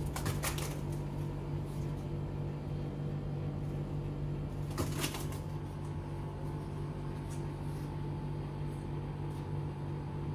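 A pigeon's wings flap in a short flurry as it beats against a glass balcony railing, with another brief flurry about five seconds in. A steady low hum runs underneath.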